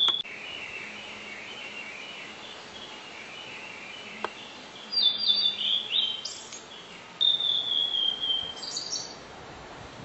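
Male blue-and-white flycatcher singing: a quieter warbling phrase at the start, then, after a pause, runs of high clear whistled notes, the longest a whistle sliding slowly downward. A single light click sounds about four seconds in.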